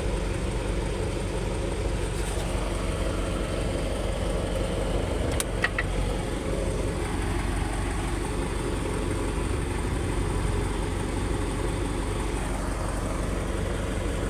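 An engine idling steadily with a low rumble, and a single sharp click about five and a half seconds in.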